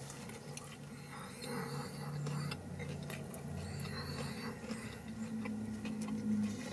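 A person chewing a mouthful of fried fish sandwich, with soft, faint chewing clicks over a low steady hum.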